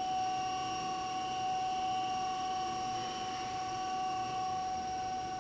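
Main spindle of a Tsugami BH38SY CNC Swiss-type lathe running at 2,000 RPM: a steady machine whine with one strong held tone and several fainter higher tones, unchanging throughout.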